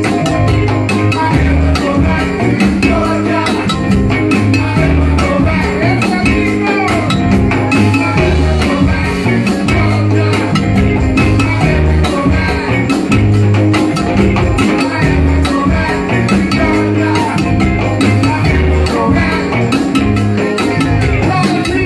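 Live Latin soul band playing loudly from the stage, with a pulsing bass line, busy percussion and a man singing lead into a microphone.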